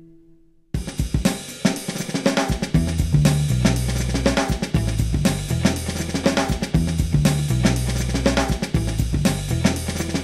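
Music: a lingering sustained note dies away, and under a second in a rock-style band comes in with a drum kit (kick, snare, hi-hat and cymbals) over a stepping bass line at a steady beat.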